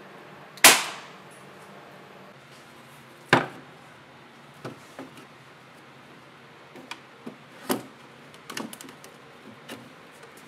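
Pallet-wood boards knocking: two loud sharp wooden impacts with a short ring, about three seconds apart, then a run of lighter knocks and taps as the boards are handled and fitted together.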